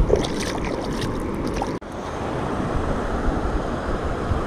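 Steady rushing of a small waterfall pouring into a pond, with a momentary dropout just under two seconds in.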